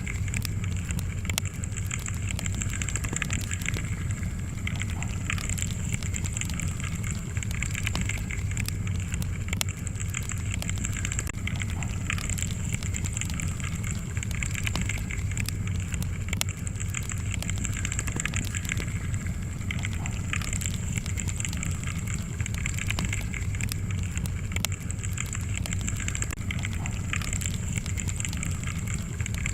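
Wood fire crackling steadily, with frequent small sharp pops over a low, even rumble.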